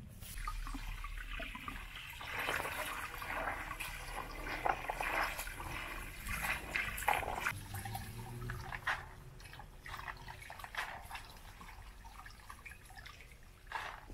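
Hands washing chickpeas in a plastic basin of water: irregular splashing and dripping, busiest in the first half and thinning out later.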